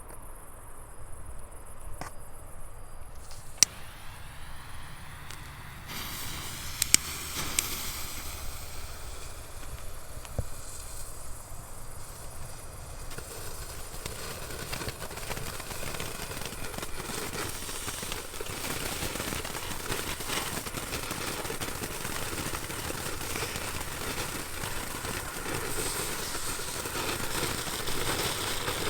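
Small consumer firework burning with a continuous hiss and fine crackle that grows steadily louder, after a few sharp pops in the first seven seconds.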